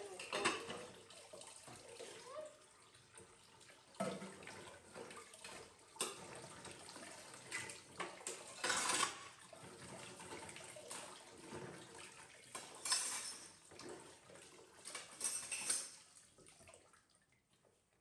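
Dishes being washed in a stainless steel kitchen sink under a running tap: plates clink and clatter against the steel over the flow of water, with sharp knocks every few seconds, loudest about nine seconds in. It dies down over the last couple of seconds.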